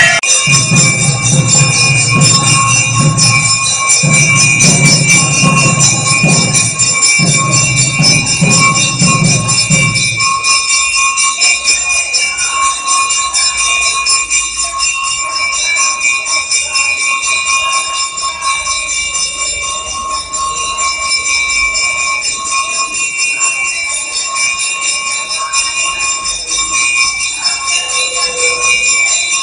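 A temple bell ringing continuously in a steady metallic peal throughout a puja. A lower rumbling sound comes in three stretches under it during the first ten seconds and then stops.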